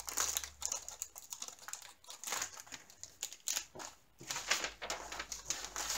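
Clear plastic packaging crinkling and rustling as small packaged items are handled, with many irregular light clicks and taps.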